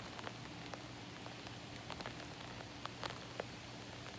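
Steady rain falling, with individual drops ticking sharply on nearby surfaces, over a faint steady low hum.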